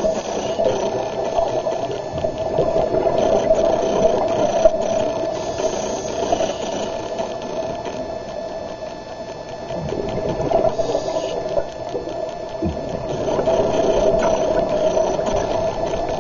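Underwater sound of a scuba diver breathing through a regulator, with exhaled bubbles rushing, rising and falling in slow swells a few seconds long.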